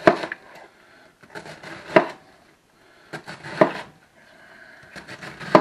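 Kitchen knife crunching through a raw cabbage wedge and knocking down onto a plastic cutting board, four cuts a second and a half to two seconds apart.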